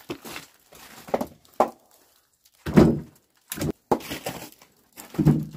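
Split firewood logs knocking together as they are taken from a wheelbarrow and stacked on a woodpile: a string of separate wooden thunks, the loudest about three seconds in and again near the end.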